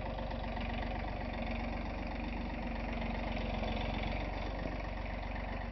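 Engine of a John Deere compact tractor with front loader, running steadily as the tractor moves.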